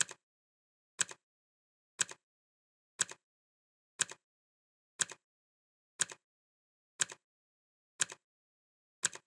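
Clock ticking sound effect counting off the seconds: one tick every second, each a short double click, with dead silence between ticks.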